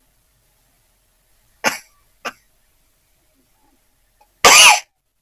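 A woman sneezing: two short, sharp catches of breath about half a second apart, then one loud sneeze near the end.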